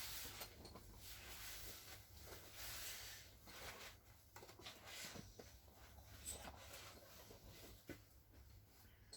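Faint rubbing and scraping with a few small clicks, close to silence.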